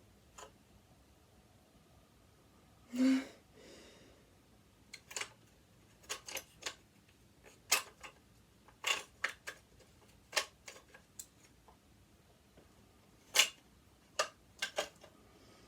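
Irregular sharp clicks and light knocks of metal hand tools against the metal parts of a sewing machine being taken apart, with a short scrape about three seconds in.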